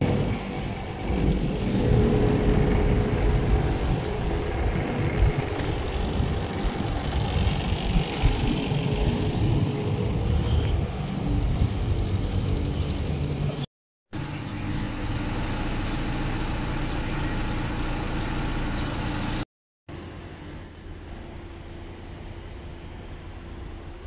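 Outdoor street noise with a vehicle-traffic rumble, in three stretches. The first half is loud and uneven, the middle stretch is steadier with faint high chirps, and the last is quieter with a low hum.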